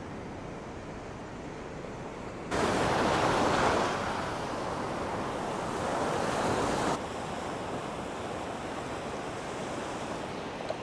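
Ocean surf breaking and washing up a sandy beach, a steady rushing noise. It jumps abruptly louder about two and a half seconds in and drops back just as abruptly about seven seconds in.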